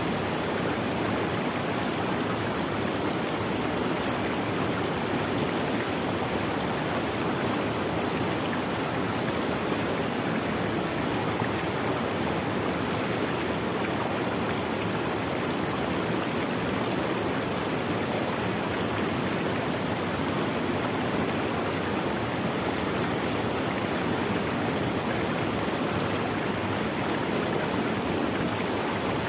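Running water of a stream, a steady, even rushing with no change in level.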